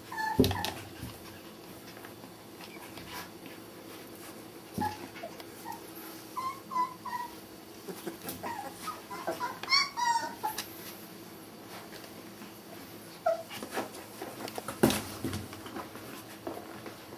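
Border collie puppies whimpering and yipping in short, high cries, scattered irregularly with a cluster of them about ten seconds in. A few sharp knocks sound between the cries.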